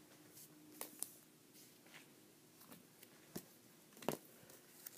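Faint scattered clicks and taps of a comic book being handled, over quiet room tone.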